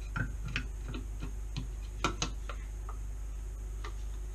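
Light, irregular plastic clicks and taps, with two sharper ones about two seconds in, as the plastic lid of a Miele C3 vacuum's motor casing is handled and turned to line it up with the casing.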